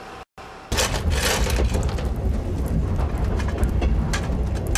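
Low running rumble of a train carriage, with scraping and clinking as a metal poker works the coal in the carriage's coal-fired stove. This starts under a second in, after a brief cut to silence.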